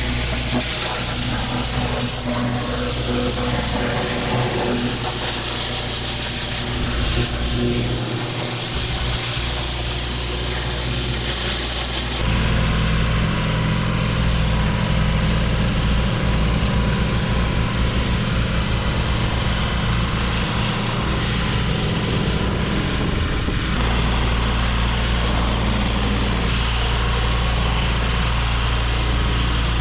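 Pressure washer's engine running steadily under the hiss of high-pressure water spraying onto stone paving. The hissing top end drops away abruptly for about ten seconds partway through, then returns.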